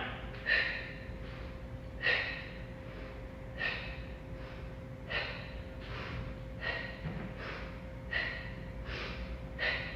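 A person breathing audibly in time with exercise reps, a sharp breath about every one and a half seconds, each followed by a softer one: a breath out on each arm lift and a breath in on the way down.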